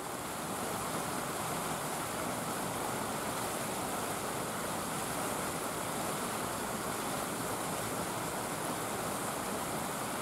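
A steady, even rushing noise that holds unchanged throughout, with no distinct calls, knocks or other events in it.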